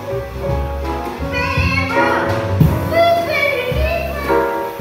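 Live jazz combo playing: a woman singing with piano, upright bass and drum kit.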